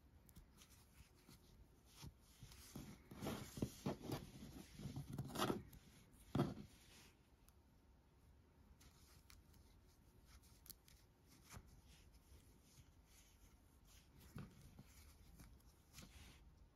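Rustling and rubbing of aran yarn handled close up as tails are knotted and pulled through the stitches of a crocheted piece, with a run of scratchy rustles about three to six and a half seconds in, ending in a louder short rustle; otherwise faint handling.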